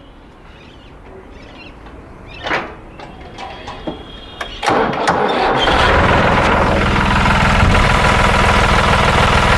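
New Holland 5500 tractor's non-turbo diesel engine starting about halfway in and settling into a steady idle, after a few short knocks.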